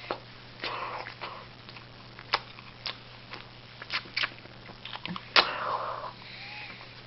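A person chewing a hamburger with the mouth open: several sharp, wet mouth clicks and smacks, and a couple of short noisy breaths, over a steady low electrical hum.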